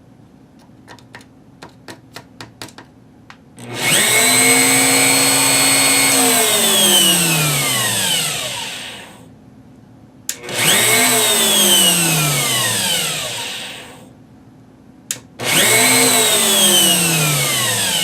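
Bosch 6176 router motor, bit removed, cutting in three times as its flaky on/off switch is tapped: each time it runs up, holds briefly and winds down to a stop with falling pitch. A few light taps on the switch come first. The intermittent switch is taken to be the fault.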